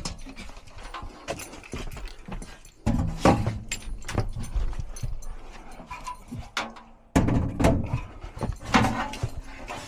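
Irregular knocks and clunks of furnace parts being handled and fitted during reassembly, louder and busier about three seconds in and again from about seven seconds in.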